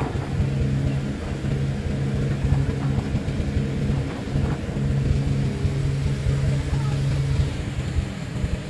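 Passenger boat's engine droning steadily, with wind buffeting the microphone and the rush of water in the wake.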